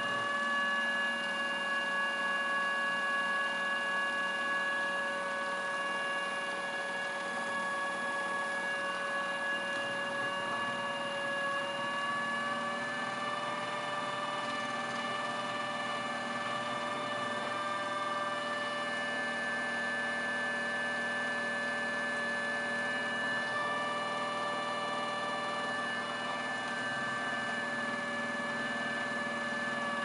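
Small electric motor of a modified Miele W1 toy washing machine turning its water-filled drum: a steady whine, its pitch shifting slightly now and then.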